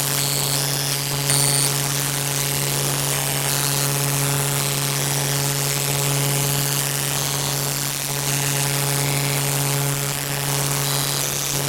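A loud, steady droning hum under a harsh hiss, with brief high-pitched tones flickering on and off above it.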